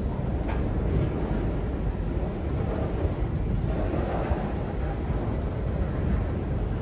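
Freight train cars rolling past, a steady low rumble of steel wheels on the rails.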